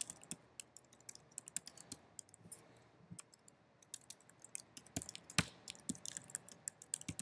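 Typing on a computer keyboard: irregular quick keystrokes, with a louder key strike about five seconds in and another near the end.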